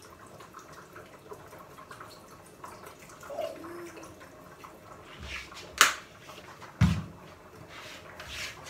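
Soy sauce poured from a bottle into a pressure cooker's inner pot, a faint liquid trickle. Two sharp knocks about a second apart come past the middle.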